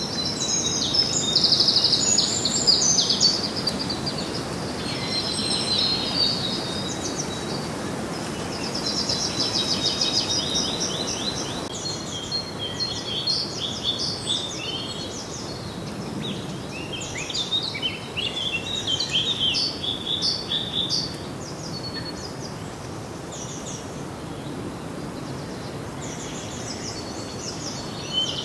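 Several songbirds singing and chirping together: quick trills and repeated chirps over a steady background hiss, busiest in the first twenty seconds and thinning out near the end.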